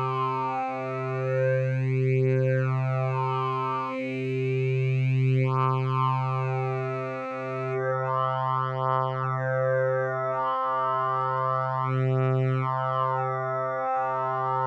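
Logic Pro X RetroSynth synthesizer in wavetable mode with the 'Vowels Soft' table, holding a low note while the shape dial steps through the table's digiwaves. Its vowel-like colour keeps shifting as the formants open and close, like a singer opening and closing the mouth on one note. The note breaks briefly every three seconds or so.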